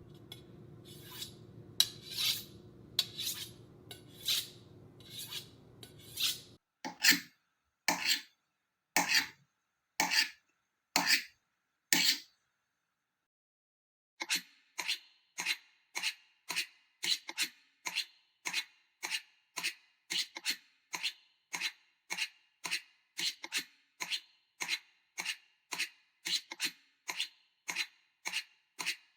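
Foley sound effects: a run of short scraping knocks, slower at first, then after a brief pause a faster, even run of about two a second.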